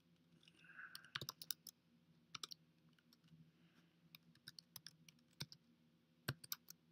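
Faint typing on a computer keyboard: scattered key clicks in short runs, the longest about a second in and another in the second half.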